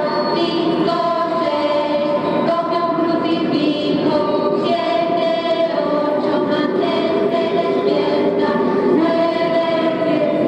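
Background music: a choir singing long held notes that change every second or two.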